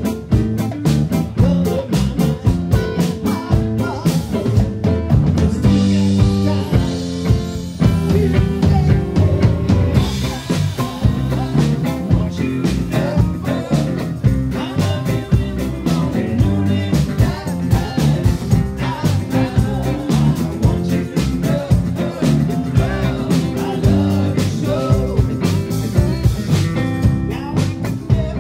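Live rock band playing, with a steady drum-kit beat under bass and electric guitar.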